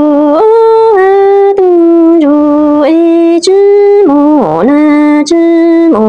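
A woman singing a Hmong lug txaj (kwv txhiaj) lament in long held notes that step from pitch to pitch, with a swooping dip and rise about four seconds in.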